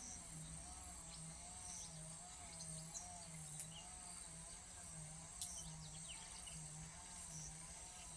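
Insects droning steadily at a high pitch, with a lower wavering tone and a low hum pulsing about once a second beneath it. Two brief sharp chirps stand out, about three and a half and five and a half seconds in.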